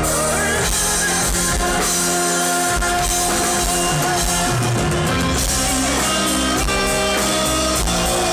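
Symphonic metal band playing live: drum kit and electric guitar under long held notes, heard loud and dense from within the audience.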